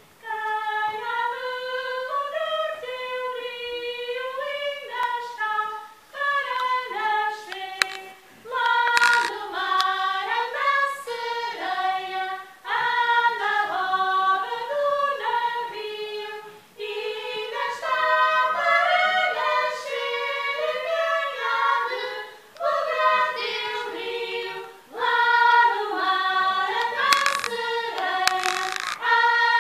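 A group of women's voices singing a Portuguese folk song together, in phrases with short breaths between them. A sharp knock sounds about eight seconds in.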